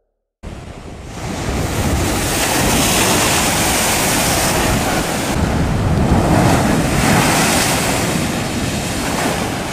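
Ocean waves crashing against a rocky shore, a loud rush of surf and spray that cuts in suddenly about half a second in and swells and eases twice.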